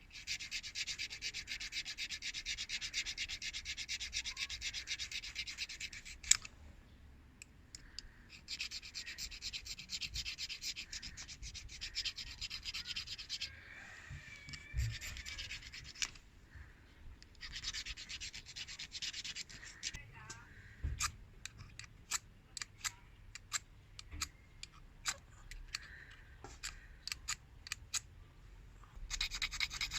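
A ferrocerium fire-starter rod being scraped with its striker: several long runs of rapid, rasping strokes, separated by pauses filled with scattered clicks and taps.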